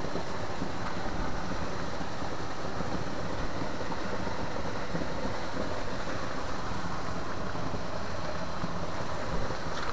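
Steady rushing background noise, even in level throughout, with no distinct sound events; a faint click near the end.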